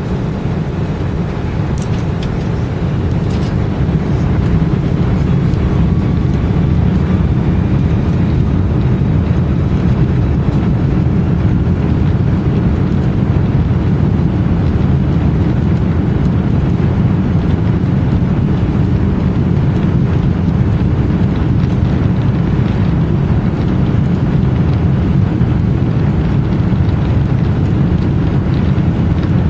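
Airbus A330-300 heard from inside the cabin during its takeoff: a steady, loud, low rumble of engines and rolling, which swells about four seconds in and then holds.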